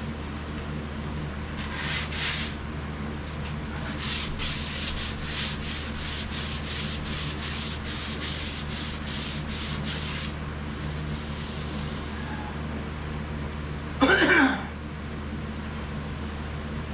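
Sandpaper rubbed back and forth by hand over a painted sheet-metal body panel: a stroke or two, then a run of quick, even strokes about two and a half a second, from about 4 to 10 seconds in, over a steady low hum. About 14 seconds in, a short, loud sound falling in pitch cuts in.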